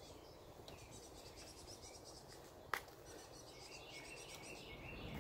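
Faint birdsong: quick repeated high chirps and a lower warbling trill near the end, with one sharp click about two and a half seconds in.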